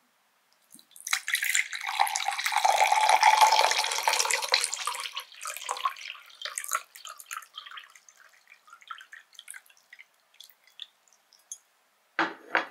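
Water poured from a bottle into a drinking glass: a splashing stream for about four seconds that thins out, then scattered small pops and drips fading away. A brief knock near the end.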